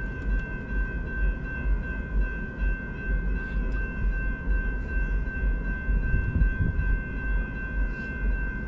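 Railroad crossing warning bell ringing without a break, a steady ringing tone that holds throughout, over a low rumble.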